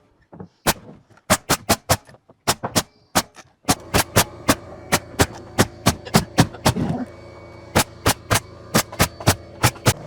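Pneumatic nail gun firing in quick bursts of sharp shots, nailing framing or wall sheathing. A steady hum joins about four seconds in.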